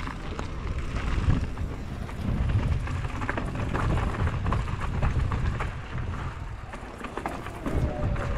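Mountain bike descending a rocky dirt trail: wind buffets the microphone in a low rumble while the tyres crunch over gravel and the bike rattles and knocks over rocks and bumps.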